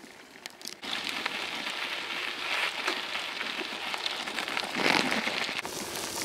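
Bicycle tyres rolling over an unpaved gravel and dirt path: a steady crunching hiss full of small crackles, starting about a second in.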